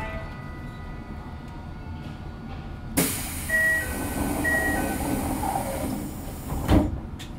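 Toei 5300-series subway car standing at a station with a low hum, then a sudden loud hiss of compressed air from the pneumatic door engines. A two-note door chime (high then low) rings twice over the hiss, and the hiss ends in a heavy thud as the doors finish moving.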